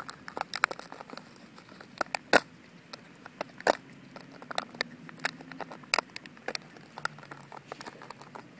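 A Border Terrier chewing and biting a plastic water bottle, the plastic crackling and crunching in irregular sharp clicks. The two loudest cracks come about two and a half seconds in and again just under four seconds in.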